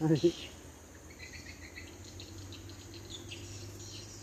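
Insects chirping steadily in a fast, pulsing trill, with a brief voice at the very start.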